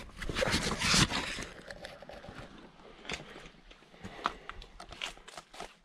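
Camera handling noise, a dense rubbing rustle in the first second or so as the camera is swung down. Then scattered footsteps on loose stones and dry leaves along a rocky path.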